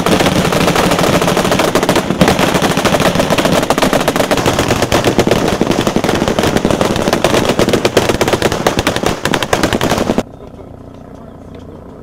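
Sustained automatic machine-gun fire in a firefight: loud, dense, rapid shots overlapping with no pause. About ten seconds in it cuts off abruptly to a much quieter steady low background.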